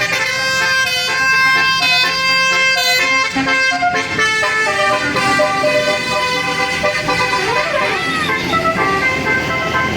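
Bus 'telolet basuri' multi-tone horn playing a quick tune, several notes sounding at once and changing pitch in steps every fraction of a second.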